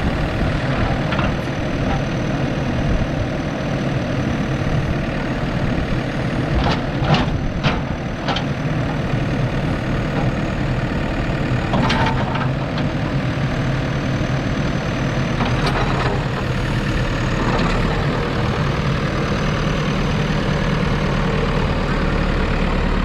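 JCB 3DX Super backhoe loader's diesel engine idling steadily, with a few short sharp clicks or clanks about a third of the way in and again in the middle.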